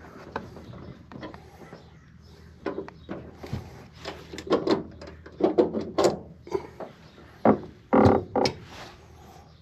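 Tools and a throttle cable being handled at the workbench: irregular clicks, knocks and rattles, busiest and loudest in the second half.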